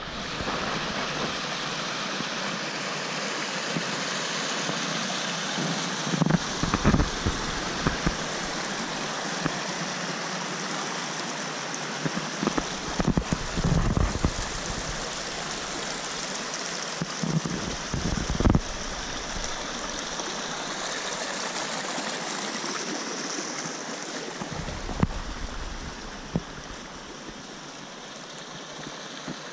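Mountain stream running over rocks, a steady rush of water, with a few short low rumbles and thumps now and then; the water is a little quieter near the end.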